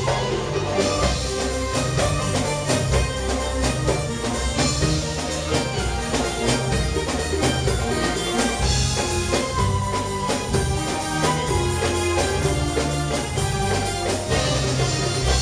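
Arabic belly-dance music played by a small band with keyboard, qanun, hand drums and drum kit, carried by a quick, steady drum beat.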